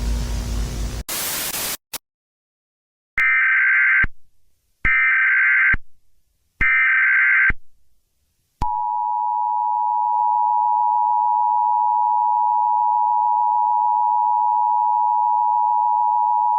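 Emergency Alert System signal: a hiss of static ends in a brief burst of white noise. Then come three short bursts of the warbling SAME header data tones, evenly spaced, and from about halfway through the steady two-note EAS attention tone.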